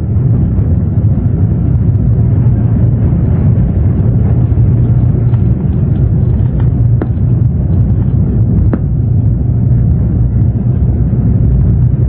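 Running noise of a 0 Series Shinkansen heard inside the passenger car: a steady low rumble with a couple of faint ticks in the second half.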